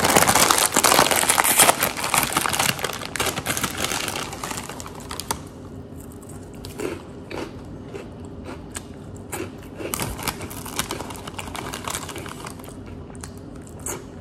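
Plastic snack-chip bag crinkling as it is pulled open, loudest in the first two seconds, then thinning to lighter rustling and scattered crackles as a hand rummages inside for chips.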